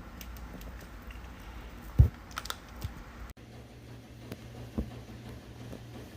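Scattered light clicks and taps, like fingers or paws on a keyboard, with one loud thump about two seconds in. The sound cuts off abruptly a little past the middle, and a faint steady low hum with occasional taps follows.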